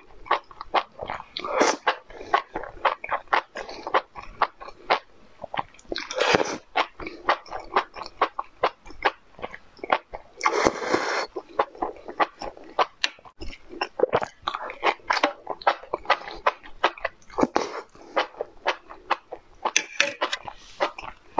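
Close-miked eating of enoki mushrooms in chili sauce: a steady run of wet chewing and mouth clicks, with a longer slurp every few seconds as the stalks are sucked in.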